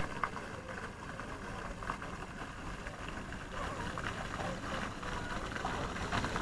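Steady, even outdoor hiss of a small fountain's water jet splashing into its shallow pool.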